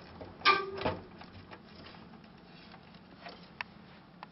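Small clicks and knocks of hands working a graphics card loose inside a desktop computer case, with a louder clatter about half a second in and scattered light ticks after.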